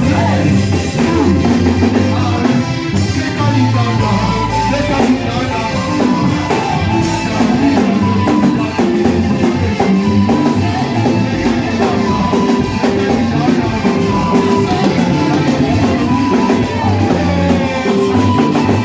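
Live church worship band playing, with drum kit and electric guitar.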